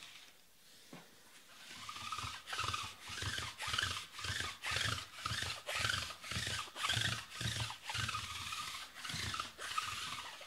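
Rhythmic back-and-forth rubbing strokes, about two a second, starting a second or two in and stopping suddenly near the end.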